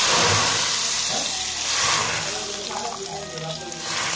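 Hot ghee tadka hitting cooked dal: a loud sizzling hiss that dies down over the first couple of seconds. It swells briefly again near the end as a ladle turns the dal over the tadka.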